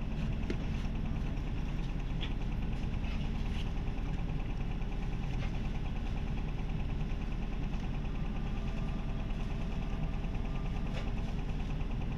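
Isuzu 2DG-LV290N3 city bus's four-cylinder diesel engine idling steadily, heard from inside the cabin, with a few faint clicks.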